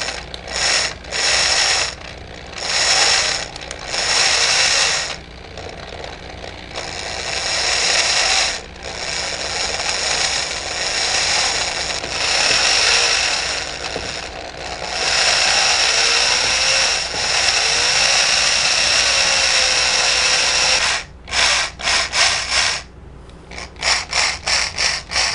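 Electric drill boring a hole into the projector's metal lamp housing frame. It runs in several short bursts at first, then in long runs with a steady high whine, then in quick stop-start pulses near the end as the bit works through.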